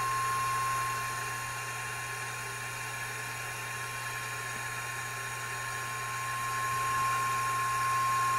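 Steady 1 kHz test tone with hiss and a low hum, heard through a signal-tracing sniffer probe held near a transistor in the equalizer's audio stage. It is louder about the first second and again near the end as the probe comes close, and softer in between. It shows that the test signal is reaching that transistor.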